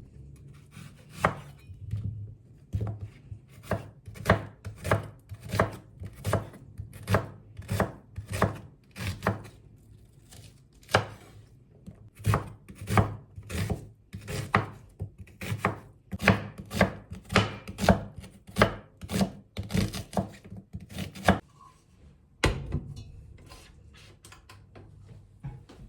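Kitchen knife chopping food on a cutting board in steady strokes about twice a second, stopping about 21 seconds in, followed by a couple of single chops.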